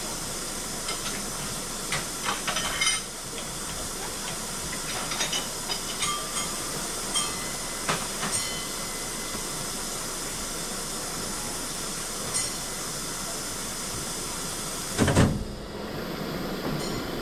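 Steam locomotive Dolgoch, an 0-4-0 well tank, hissing steadily with scattered metallic clicks and knocks. A heavy low thump comes about fifteen seconds in, and after it the hiss drops away.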